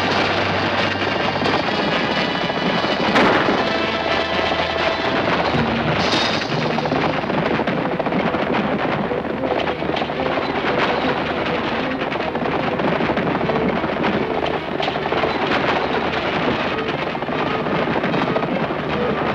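Galloping team of horses and a rattling wagon: a dense, rapid clatter of hooves and wheels, with orchestral film music underneath. A louder hit stands out about three seconds in.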